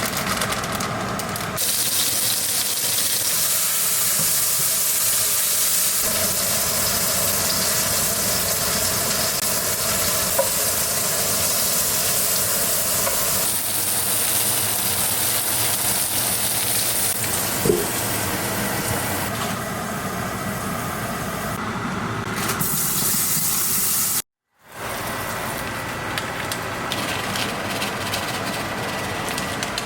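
Food sizzling in a hot frying pan: a steady hiss, with a couple of faint clicks of a utensil. It cuts out briefly about three-quarters of the way through, then sizzles on a little quieter.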